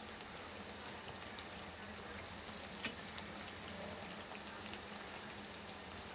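Bread pieces deep-frying in hot refined vegetable oil: a steady faint sizzle with scattered small crackles and one sharper pop about three seconds in.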